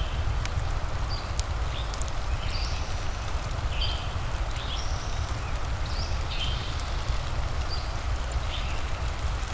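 Steady fireplace-and-rain ambience: a constant low rumbling hiss with scattered sharp fire crackles. Short high chirps repeat about once a second over it.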